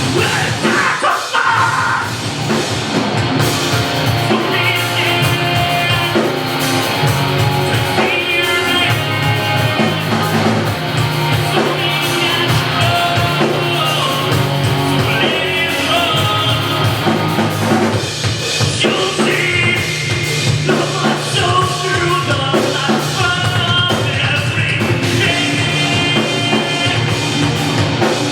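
Live post-hardcore band playing a song at full volume: drum kit, distorted guitars and vocals.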